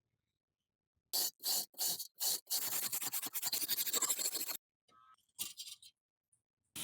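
Scraping on a surface by hand: four separate strokes, then a quick run of rapid short strokes for about two seconds, then a few fainter scrapes.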